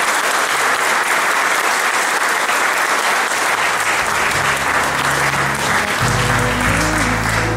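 Congregation applauding, a steady crackle of many hands clapping, with music fading in underneath about halfway through.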